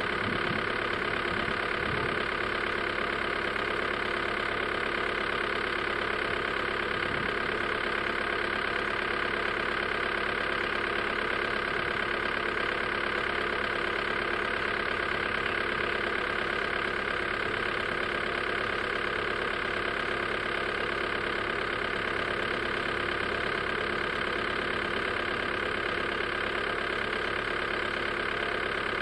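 An engine idling, a steady drone that does not change in pitch or level.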